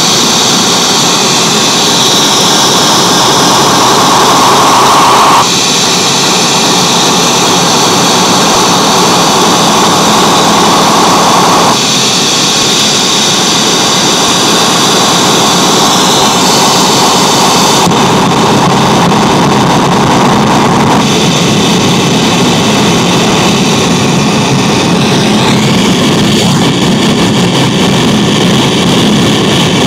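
Noise from a Xiaojia noise generator pedal played through a NUX Atlantic delay and reverb pedal and a Yamaha THR amp: a loud, continuous wash of noise. Its tone shifts abruptly every few seconds as the settings are changed.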